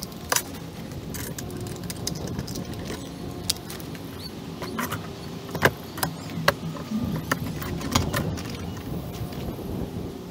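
Rustling and handling of camouflage fabric gear pouches on a metal-mesh table, with scattered sharp clicks and knocks as they are picked up and set down.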